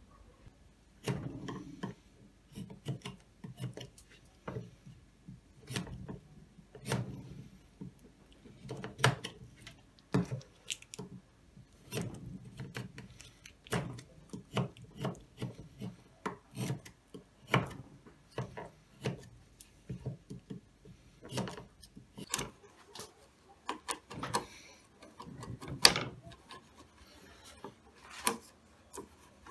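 Irregular knocks, clicks and scraping of wood being handled and worked with hand tools, with one sharper knock near the end.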